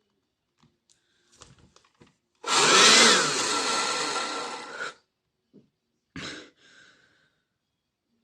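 Car vacuum cleaner's 12-volt motor run straight off a 21-volt cordless drill battery, well over its rated voltage. A few light clicks as the wires are touched on, then the motor and its airflow run loud for about two and a half seconds, the whine rising then falling, and cut off suddenly, with a short clatter after.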